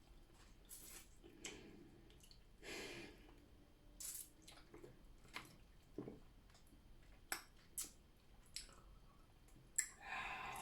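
Faint sounds of eating: soft chewing with scattered small clicks and smacks, separated by quiet gaps.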